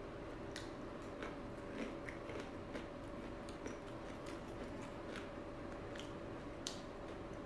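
Close-up chewing of food, with irregular small clicks and crunches from the mouth, over a faint steady hum.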